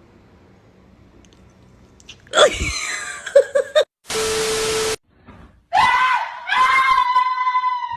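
Two loud, drawn-out screaming cries. The first wavers in pitch; the second is longer and held high. Between them comes a one-second burst of hiss with a steady tone under it.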